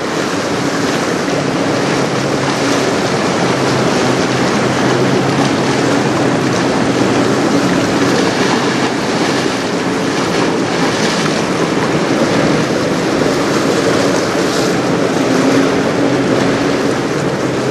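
Gusty wind buffeting the microphone over choppy river water, with a faint low steady engine hum underneath.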